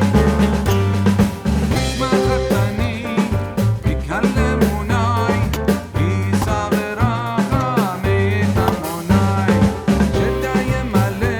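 Background music with drums and a steady beat, and a wavering melody line over it.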